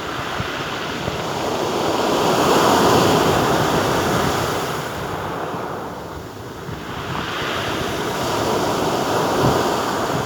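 Sea surf washing onto the beach, swelling to a loud wave about three seconds in, easing, then building again with the next wave. Wind buffets the microphone throughout.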